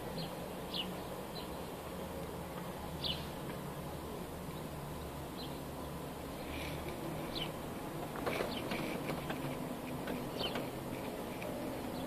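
House sparrows giving short, sharp chirps every few seconds, with a quicker flurry of chirps about eight seconds in, over a steady low background hum.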